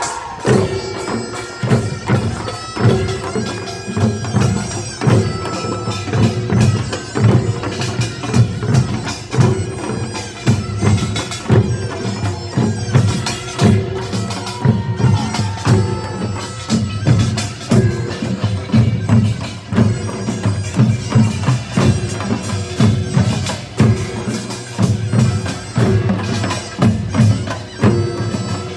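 Gyeongsang-do nongak, Korean farmers' band music: drums and gongs strike a steady driving rhythm under a piercing reed-pipe melody, most likely the taepyeongso shawm.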